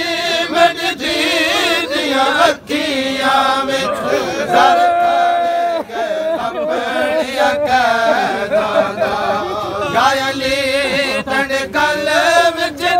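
A man's voice chanting a noha, a Shia mourning lament, without instruments. He holds long notes that waver in pitch, with short breaks for breath between phrases.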